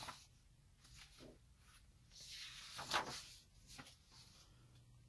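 Sheets of drawing paper being shuffled and slid over one another by hand, with faint rustling swishes; the loudest comes about three seconds in.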